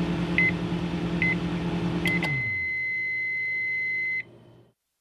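A machine running with a steady electric hum, with three short electronic beeps. About two seconds in, the hum winds down and a long beep sounds for about two seconds, then cuts off.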